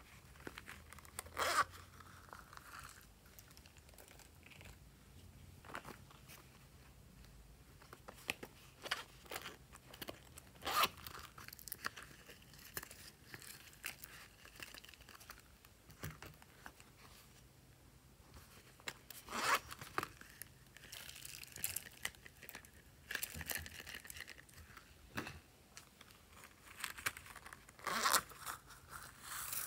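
Hands handling slime add-ins over a bowl of slime: scattered crinkles, crackles and short tearing noises, the loudest about a second and a half in, around eleven seconds, around twenty seconds and near the end.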